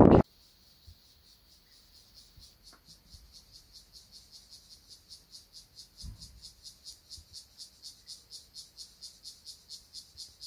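A loud rush of wind noise cuts off suddenly at the start. Then an insect chirps in a steady high-pitched rhythm, about five pulses a second, growing louder.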